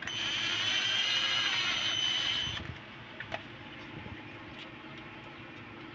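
Cordless drill-driver motor running for about two and a half seconds as its screwdriver bit turns a terminal screw on a plastic lamp holder: a steady high whine that then stops. A couple of small clicks follow.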